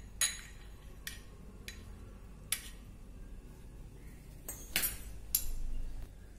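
A metal spoon clinking against a small glass bowl while stirring cornflour into water, a few sharp clinks spread out with gaps between them.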